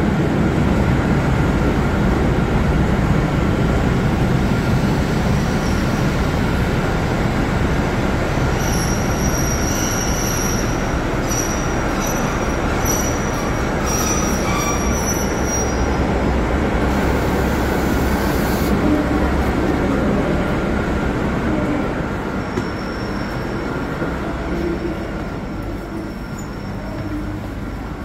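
Electric commuter train pulling into a station platform, rumbling as it slows, with high-pitched wheel and brake squeal for several seconds. A short hiss follows as it comes to rest, and the rumble then eases.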